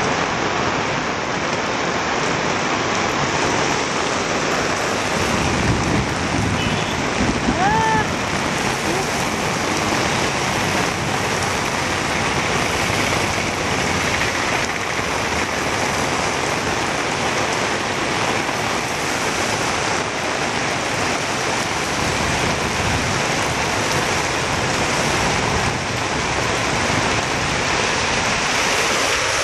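Heavy monsoon rain pouring onto a road, a loud, steady, dense hiss. A few short tones rise and fall about eight seconds in.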